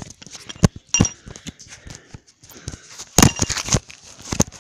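Camera microphone handling noise as the camera is moved and set down in grass: an irregular string of clicks, knocks and rustling, with a louder cluster of knocks about three seconds in.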